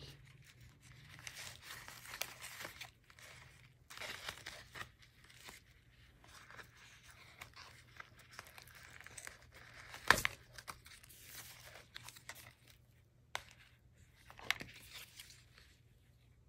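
Thick paper and cardstock tag pages of a handmade junk journal rustling and crinkling as they are handled and turned, in irregular spells, with a sharp tap about ten seconds in.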